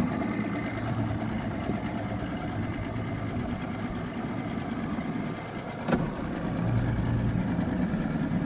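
Boat engine idling steadily with a low hum. One sharp click about six seconds in, after which the engine sounds a little louder.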